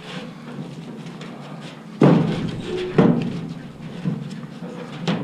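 Aluminum scrap poles clanking: two loud knocks about a second apart, each ringing briefly, then a smaller knock near the end.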